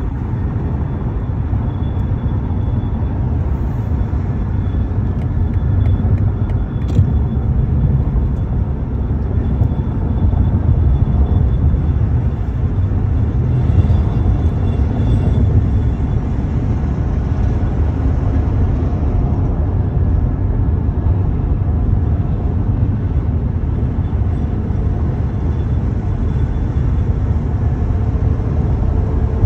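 Steady low road rumble inside a car cabin at highway speed, from tyres on the road and wind.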